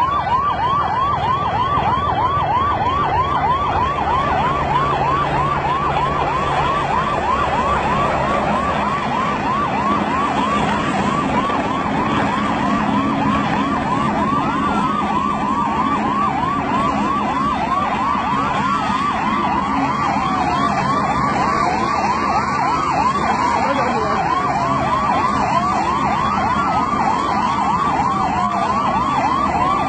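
Emergency vehicle sirens wailing: one siren in a fast yelp, several rising-and-falling sweeps a second, with a second siren of slower, falling sweeps joining about halfway through, over a low engine rumble.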